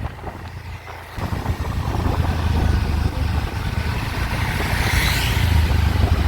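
Motor vehicle noise: a steady low rumble that grows louder about a second in, with a higher hiss swelling and fading around five seconds in.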